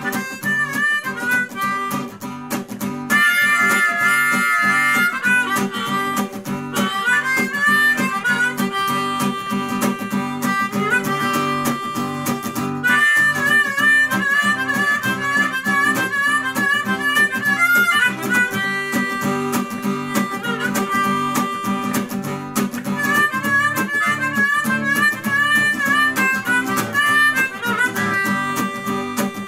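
Harmonica playing an instrumental solo in phrases over a strummed acoustic guitar, with no singing.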